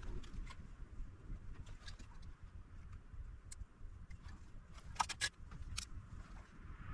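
Faint clicks and ticks of small hand tools at work on a circuit board, with a quick cluster of sharper clicks about five seconds in, over a low steady rumble.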